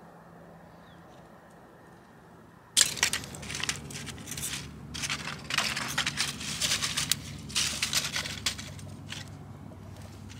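Dry leaves and twigs crunching and crackling close by while a campfire's tinder is being lit. The sound begins suddenly about three seconds in, after a quiet start, and goes on as a dense run of crisp crackles.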